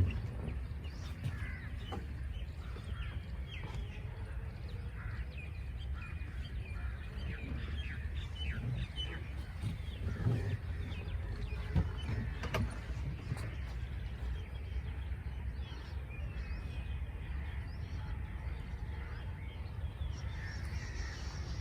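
Several small birds chirping in short, scattered calls over a steady low background rumble, with a few sharp clicks between about ten and thirteen seconds in.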